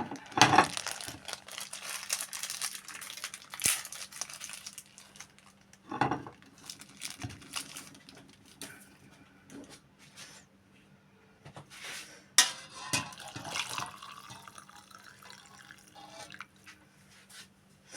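Liquid being handled while a home remedy is prepared: dripping and splashing, with irregular sharp knocks and clicks of utensils or containers, the loudest about half a second in, around 6 s and around 12 s.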